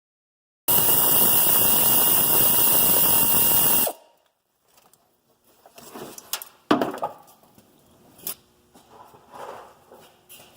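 A handheld power tool runs steadily for about three seconds, starting and stopping abruptly, then light metallic clicks and knocks of tools and parts.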